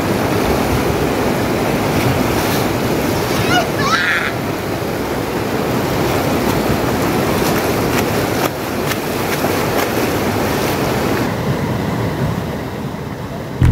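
Shallow river water rushing and splashing over boulders around a bather, a steady loud rush that eases a little near the end.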